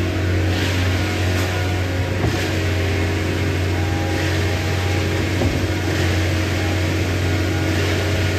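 A motor vehicle engine running steadily at a constant speed, a low hum with steady overtones.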